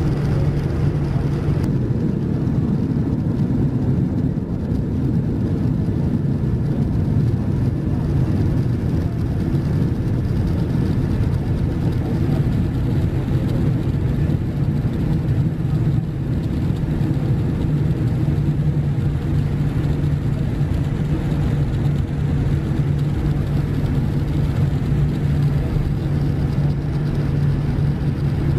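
Boeing 787-9 cabin noise on the ground: its Rolls-Royce Trent 1000 engines running at idle thrust, an even, steady low hum heard through the fuselage.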